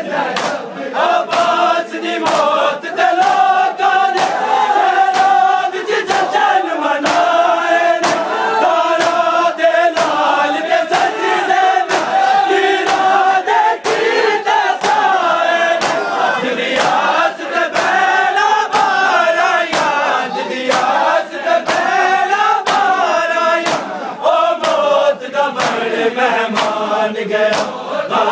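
A crowd of men chanting a mourning lament in unison while beating their bare chests with open hands (matam). The slaps land in a steady rhythm under the chant.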